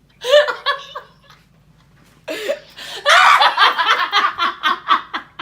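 A young woman laughing hard: a short burst of laughter, then a long, rapid fit of cackling laughter that tails off near the end.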